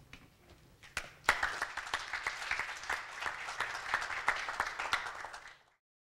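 Audience applauding: a few scattered claps, then many hands clapping together from about a second in, cut off abruptly near the end.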